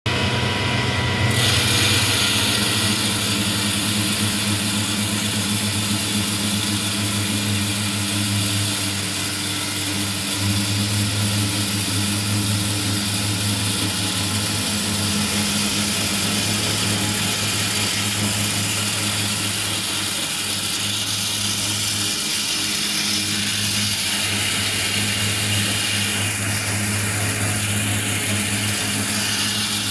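Small electric corn grinder with a cyclone separator running steadily, grinding corn into meal: a constant motor hum under a hiss of air and grain as the kernels are drawn up the suction hose.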